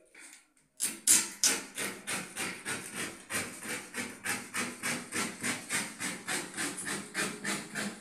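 A hand tool worked against a laminated plywood countertop in quick, even strokes, about four a second, starting about a second in.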